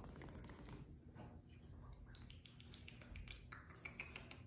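Faint light taps and clicks, scattered and quick, from kittens at play.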